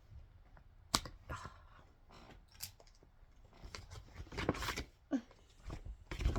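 Paper and plastic packaging being handled: scattered clicks and taps, with a louder crinkling rustle around four and a half seconds in, as the taped-up instruction booklet and sticker sheets of a Lego set are unpacked.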